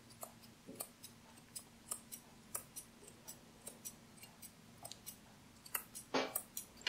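Curved blunt-tip grooming scissors snipping the fur under a golden retriever's paw: a quick, irregular series of light snips, two or three a second.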